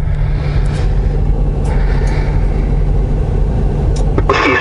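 Diesel engine of an International semi truck idling steadily, a low rumble heard from inside the cab.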